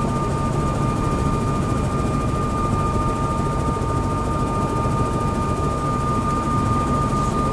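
Helicopter rotor and engine running steadily, heard from inside the cabin, a dense low rumble with a steady high whine over it.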